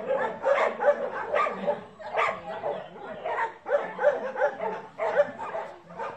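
Puppy yapping: quick runs of short yaps, several a second, broken by brief pauses.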